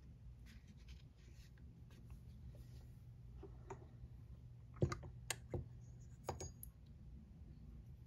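Quiet handling sounds: light scratching, then a cluster of sharp clicks and taps from small hard objects about five seconds in, over a low steady hum.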